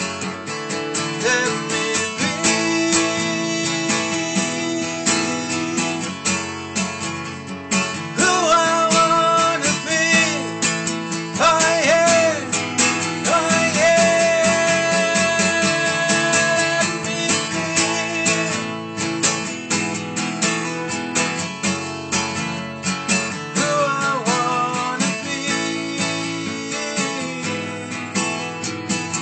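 Acoustic guitar strummed steadily. Over it, a man sings wordless held notes, one held for several seconds with vibrato about halfway through, and again briefly near the end.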